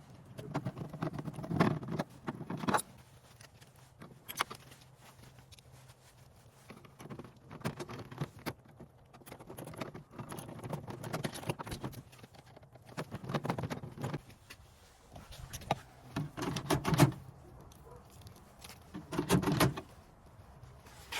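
Car door handle being worked loose by hand: scattered metal clicks and short rattling clatters, with louder clusters every few seconds.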